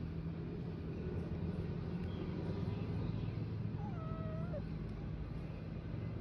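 A cat meows once, a short call rising then falling, about four seconds in, over a steady low rumble.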